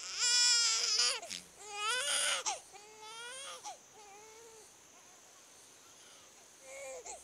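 Baby crying in drawn-out wails: two loud cries in the first few seconds, then two weaker, shorter cries that die away about halfway through.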